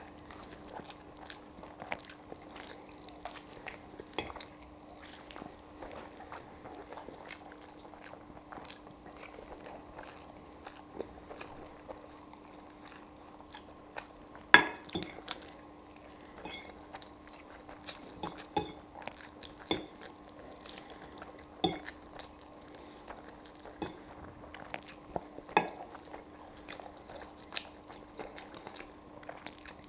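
Close-miked chewing of spaghetti carbonara, with a fork clinking and scraping against the plate in scattered sharp clicks, the loudest about halfway through. A steady low hum runs underneath.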